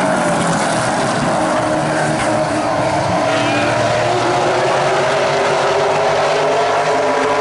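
A pack of short-track stock cars racing together, their V8 engines running hard at high revs. It is a steady, loud drone of several overlapping engine notes that drift gently up and down in pitch.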